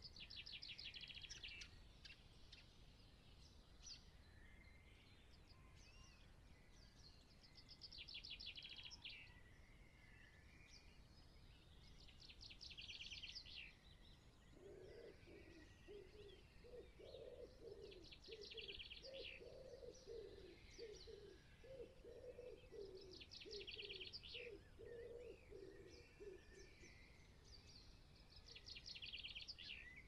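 A small songbird repeating a short, fast trilling song phrase about every five seconds. From about halfway through, a wood pigeon coos low and rhythmically underneath for some twelve seconds.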